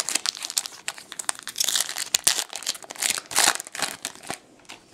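Foil wrapper of a Bowman Chrome baseball card pack crinkling and tearing as it is ripped open by hand, a dense run of crackles that stops near the end.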